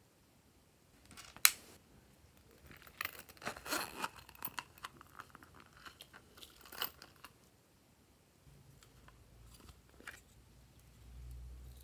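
Small plastic slime containers being handled and emptied over a glass dish: a single sharp click about a second and a half in, then a few seconds of crackling and crinkling as the contents are tipped out.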